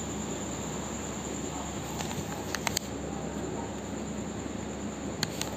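Steady high-pitched background whine over a low hiss, with a few faint clicks in two pairs, a little before halfway and near the end.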